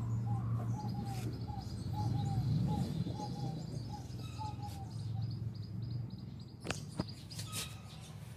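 Birds calling: a short note repeated about three times a second, with a faster, thin, high chirping over it, both stopping after about six seconds. A low steady rumble runs underneath, and two sharp clicks come near the end.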